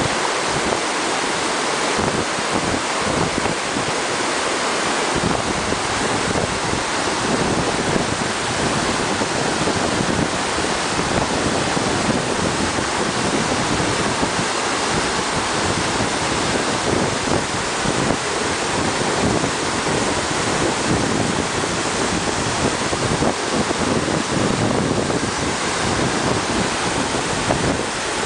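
Silty glacial meltwater torrent rushing and churning over rocks just below the Oberaar Glacier's snout, at the source of the Aare: a steady, loud rush of water that does not let up.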